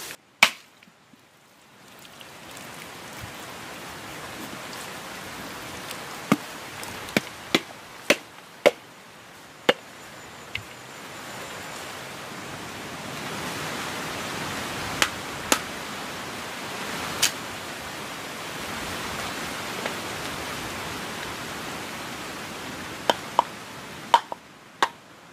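Sharp, separate knocks of a dry coconut shell being struck to crack it open, about fifteen hits in small clusters over a steady rushing hiss.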